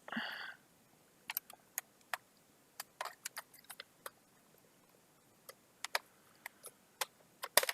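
Scattered sharp clicks and taps of plastic as a spudger pries at a laptop's plastic speaker grille and power button panel, working its clips loose; the clicks come thickest in the first few seconds and again near the end.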